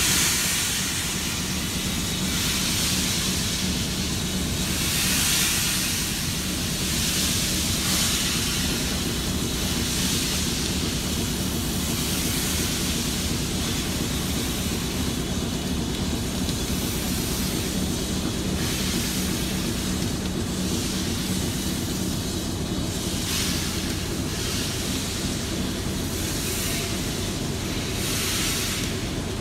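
BR Standard Class 4MT 4-6-0 steam locomotive 75014 pulling away from a standstill: slow, widely spaced exhaust beats and the hiss of steam from its open cylinder drain cocks, with a steady low hum underneath.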